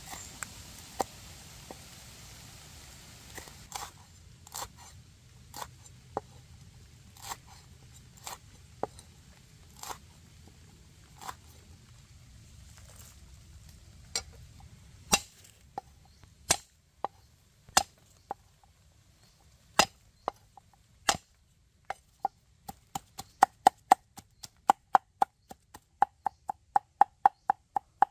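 Kitchen knife cutting red chillies on a wooden board: single sharp knocks about once a second, speeding up to quick, even chopping at about three strokes a second in the last several seconds.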